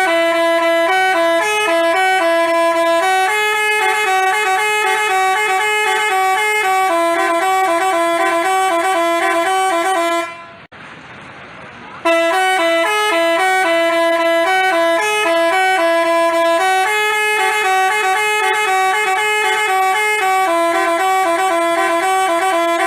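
Telolet horn, the multi-note Basuri type, playing its tune with several horn notes sounding together. The tune plays through once, breaks off for about a second and a half, then plays again.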